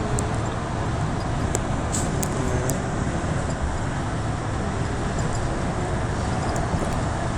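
Steady road noise inside a moving car's cabin: an even low rumble from the tyres and engine, with a few faint ticks about two seconds in.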